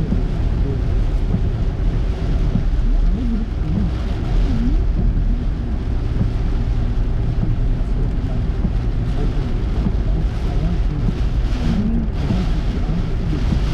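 Car driving on a wet road: a steady low rumble of tyre and engine noise, with a fainter hiss above it.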